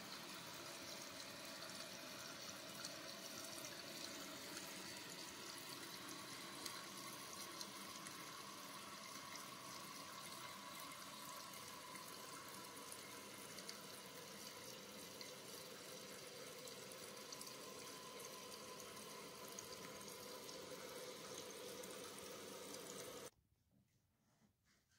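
Toilet tank's float-cup fill valve running, a steady hiss of water refilling the tank, then shutting off abruptly near the end as the tank reaches its fill level.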